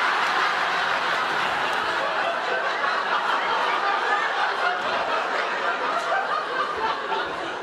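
Sitcom studio audience laughing, one long spell of crowd laughter that eases off slightly near the end.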